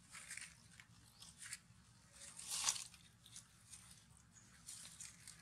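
Dry fallen leaves crackling and rustling in short irregular bursts as monkeys move and forage in the leaf litter, the loudest crackle about two and a half seconds in.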